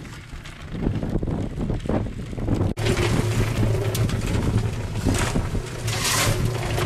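Wind buffeting the microphone over a steady low motor hum, which becomes louder and steadier after an abrupt change about three seconds in.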